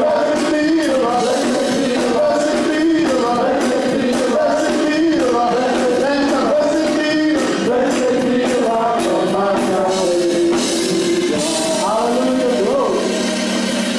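Live church worship music: a band playing with drums and cymbals while voices sing.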